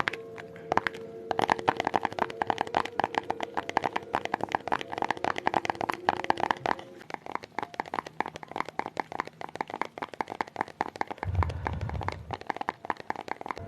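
Rapid ASMR tapping, many light taps a second. A brief low rumble comes in about eleven seconds in.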